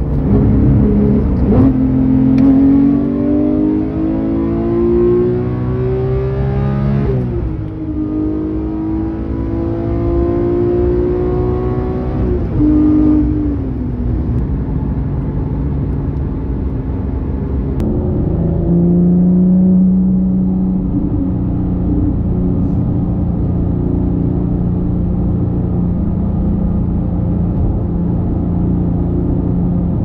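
Porsche 911 GT3 Touring's (991.2) naturally aspirated 4.0-litre flat-six pulling through the gears. The engine note climbs, drops sharply at an upshift about seven seconds in, climbs again and shifts once more around thirteen seconds. From about eighteen seconds it settles into a steady note at cruise.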